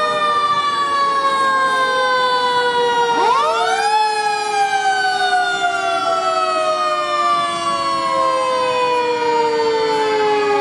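Fire engine's mechanical siren wailing: it winds up sharply about three seconds in, then slowly falls in pitch, with the tail of an earlier wind-up still sliding down underneath.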